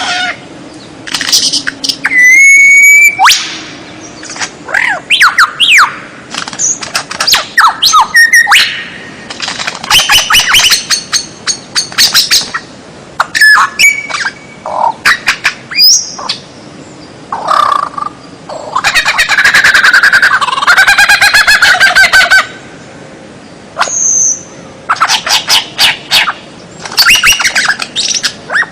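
A songbird singing a loud, varied song of whistled notes, pitch glides, short harsh chirps and a long, fast trill partway through. It is a 'masteran' recording, the kind played to caged songbirds for them to learn from.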